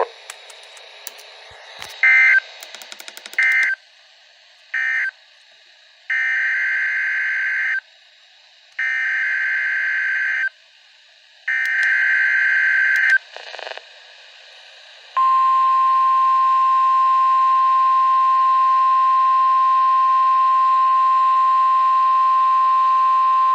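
NOAA Weather Radio Emergency Alert System tones. First come three short SAME data bursts, the end-of-message code closing the tornado warning, then three longer data bursts of about a second and a half each, the header of the next alert. About fifteen seconds in, the steady 1050 Hz weather-radio warning alarm tone starts and holds for about nine seconds.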